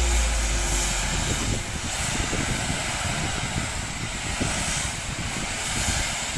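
High-pressure water spraying from a self-service car-wash lance onto a car's bodywork: a steady rush of spray.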